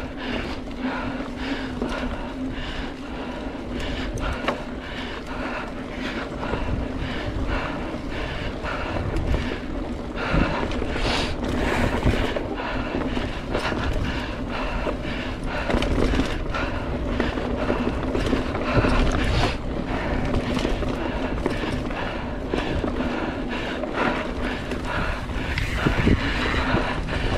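Mountain bike ridden along a dirt trail: steady rolling noise with frequent knocks and rattles over bumps, and wind on the microphone.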